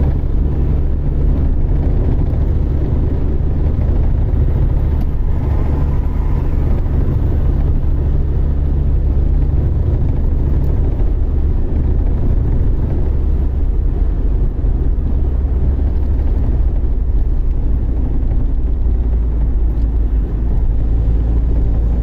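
Cabin sound of a 2005 Saturn Ion's 2.2-litre four-cylinder and five-speed manual on the move: a loud, steady low rumble of engine and road with a heavy vibration shaking the car. The pitch of the rumble shifts about halfway through and again near the end. The mechanic wonders whether the shaking comes from a motor mount or something at the flywheel left loose after the clutch job.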